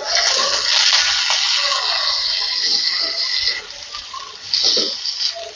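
Sliced ivy gourd (tindora) and green chillies sizzling in hot oil in a nonstick kadai while being stirred with a wooden spatula. The sizzle is loudest for the first three and a half seconds, then drops off, with a brief loud flare near the end.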